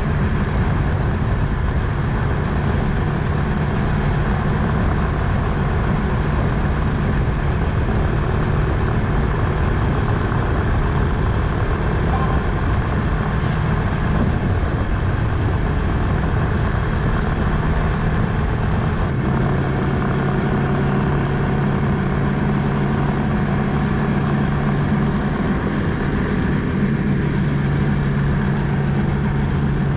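Suzuki GrassTracker BigBoy's single-cylinder engine running steadily at cruise, under a steady rush of wind and road noise. The engine note drops slightly and grows a little stronger about two-thirds of the way through.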